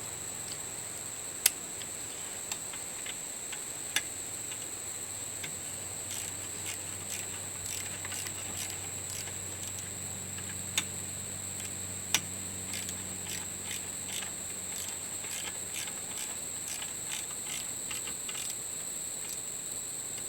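Ratchet wrench with a 12 mm socket clicking as a bolt on the belt tensioner is worked: a few sharp single clicks, then runs of quicker, lighter clicks. A steady high chirring of insects throughout.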